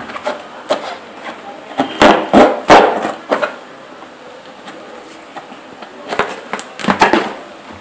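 Knife blade slitting packing tape on a cardboard box while the box is turned in the hands: short bursts of sharp scraping and crackling, loudest about two to three seconds in and again near the end.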